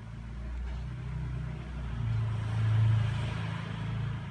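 A motor vehicle engine running close by: a low, steady hum that grows louder between about two and three seconds in, then eases off.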